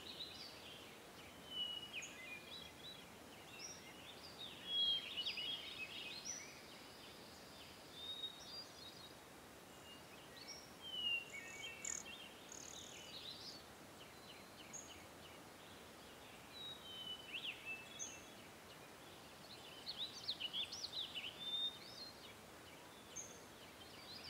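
Birds chirping and singing, with many short calls and trills, over a faint steady background hiss.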